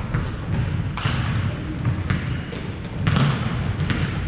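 Basketball bouncing on a hardwood gym floor, the bounces about once a second and echoing in the large hall, with a couple of short high sneaker squeaks past the middle.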